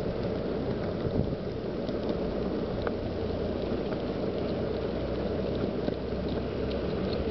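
Steady rumble of wheels rolling over an asphalt path, with faint ticks scattered through it.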